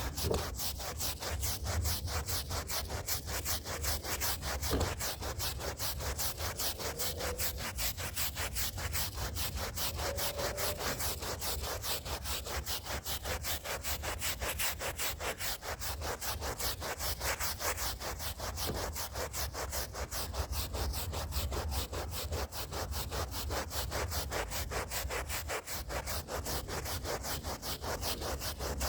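Stiff hand brush scrubbing a rug's fibres in rapid, even back-and-forth strokes, with a low steady hum underneath.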